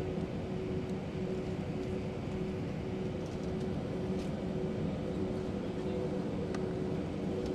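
Steady cabin noise of an Airbus A320-232 taxiing, heard from inside the cabin: the hum of its IAE V2500 engines at low taxi power, with a steady tone over it.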